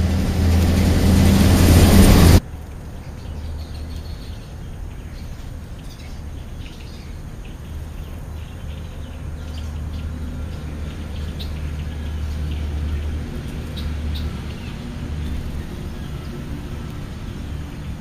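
A loud rushing noise over a low hum builds for about two seconds and cuts off abruptly, leaving a quieter steady low hum. Faint, short bird chirps come through it now and then.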